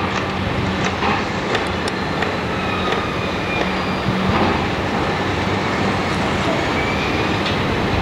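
Steady rush of surf breaking along a rocky shore, with a low hum through the first half.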